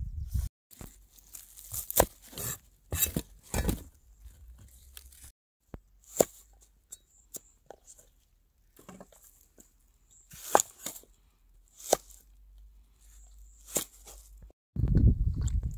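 Ingredients being cut and torn by hand: about ten separate sharp strokes, irregularly spaced a second or two apart.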